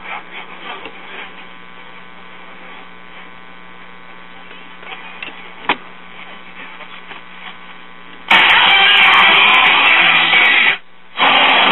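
A 1941 Aircastle five-tube AM radio plays a steady hum with a faint station behind it while an IF transformer is being adjusted. About eight seconds in, a loud hissing rush of static bursts from the speaker. It cuts out for a moment near the end, then comes back.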